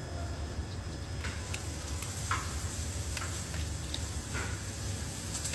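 Thick ostrich eggshell being worked open by hand along a crack: scattered, irregular small clicks and cracks of the shell, over a steady low hum.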